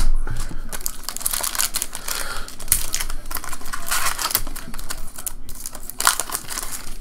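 Trading card pack's foil wrapper crinkling and tearing as it is ripped open by hand, with louder crackles around three, four and six seconds in.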